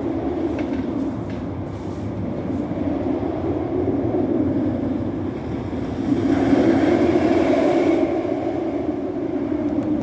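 Steel roller coaster train rumbling along its track, loudest as it passes about six seconds in.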